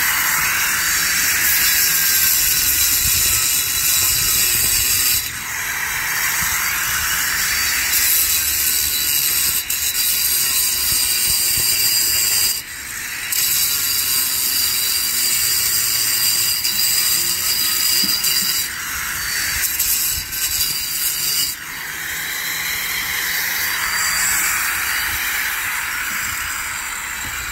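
Electric angle grinder cutting along a cracked mortar joint in a concrete block wall: a loud, gritty whine of the disc in the masonry, dipping briefly a few times as the cut eases off and resumes.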